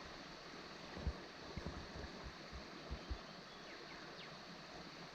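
Faint steady rush of flowing river water, with a few short low thumps between about one and three seconds in.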